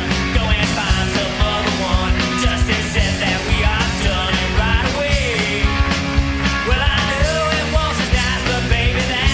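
Studio recording of a loud rock and roll band playing a punk-edged rock song, with drums hitting steadily under the band.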